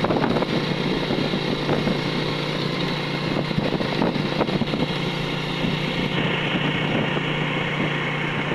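Motorcycle engine running at a steady cruising speed, heard from the passenger seat, with wind and road noise over a constant low hum.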